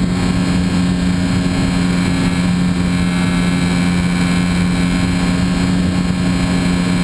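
Radio-controlled model airplane's motor and propeller running steadily at one unchanging pitch, picked up by a camera on the plane itself, over a loud rushing noise.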